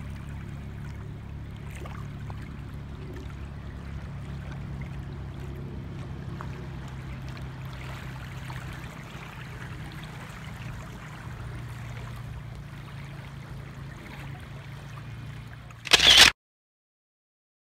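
Wind rumbling on the microphone over small lake waves lapping at a shore. Near the end a brief, loud rush of noise, after which the sound cuts off.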